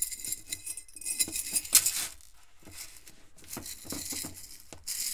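Blackened stainless-steel chainmail rings jingling and clinking as a mail holster is worked onto a glass wine bottle to test the fit. There is a run of light clinks, loudest about two seconds in.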